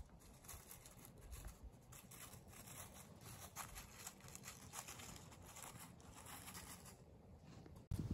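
Faint, irregular crackling and rustling of dry fallen leaves as a squirrel forages through the leaf litter.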